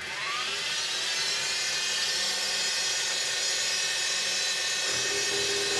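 Axminster SX2.7 V2 mini milling machine's spindle starting up: its whine rises in pitch over the first second or so, then runs steadily.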